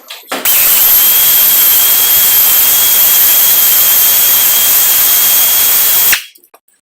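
Compressed-air tool running steadily: a loud air hiss with a thin high whine, starting abruptly and cutting off after about six seconds.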